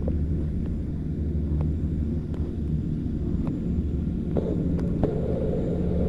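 Chairlift terminal machinery running: a steady low rumble and hum with scattered light clicks as the chair rolls through the station, and a rougher rolling noise joining about two-thirds of the way in.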